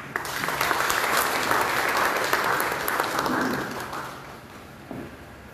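Audience applauding, fading away about four seconds in.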